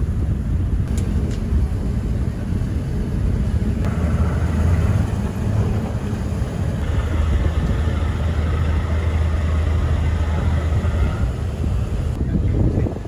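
Cruise ship's engine running with a steady low rumble, growing louder from about four seconds in until near the end as the ship comes alongside the pier.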